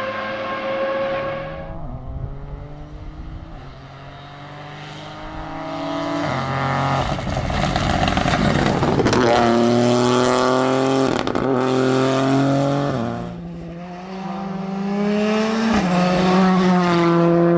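Rally car engines revving hard through the gears, each note climbing in pitch and then dropping back at an upshift, several times over. The sound swells as a car draws near, fades, then swells again near the end.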